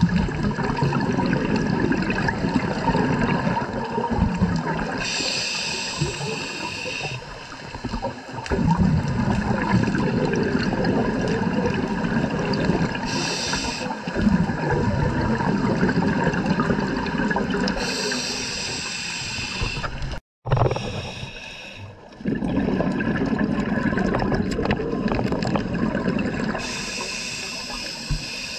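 Scuba diver breathing through a regulator underwater: rushing, gurgling exhaled bubbles alternate with a short hiss on each inhalation, one breath every several seconds. The sound cuts out for a moment about twenty seconds in.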